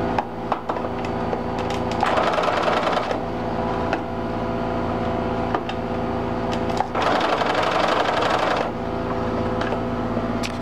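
Electronic sewing machine running with a steady motor hum, growing louder and busier twice for a second or so, about two seconds in and again about seven seconds in, with a few light clicks.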